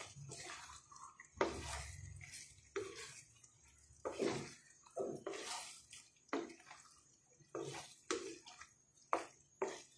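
Wooden spatula stirring wet, saucy macaroni with egg yolk and cheese in a frying pan: irregular wet stirring strokes about once a second.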